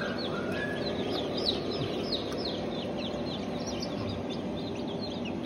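A crowd of newly hatched chicks (Light Sussex, Merawang and Barred Rock) peeping together: many short, high, falling peeps, several a second and overlapping, over a steady low hum.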